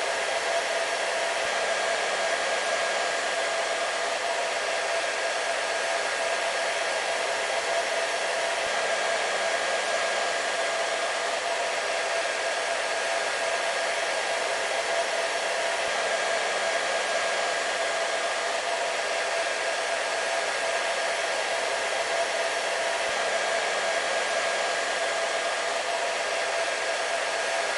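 Hair dryer running steadily on a constant setting: an even rush of blowing air with a steady motor hum in it, played as white noise to lull a baby to sleep.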